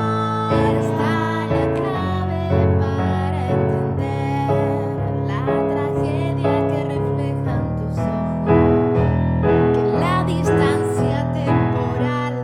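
Piano music: steady chords with a wavering melody line above them, part of a song demo.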